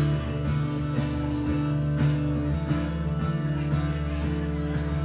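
Live acoustic guitar strummed steadily, an instrumental passage between sung lines of a country-rock song.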